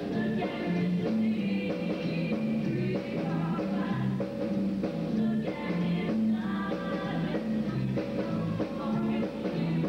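Show choir singing an upbeat rock-and-roll medley in parts, over an instrumental backing with a bouncing bass line.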